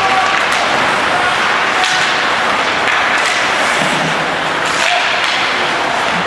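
Ice hockey play: a steady wash of skates and rink noise, broken by a few sharp clacks and thuds of stick, puck and boards, with faint shouts.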